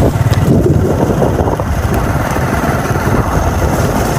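Motorcycle engine running steadily while being ridden, a loud low rumble.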